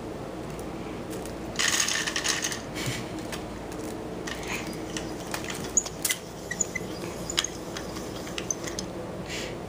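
Wicker basket creaking and crackling as a kitten shifts around inside it: a rustling burst about two seconds in, then scattered sharp clicks and ticks, over a steady low hum.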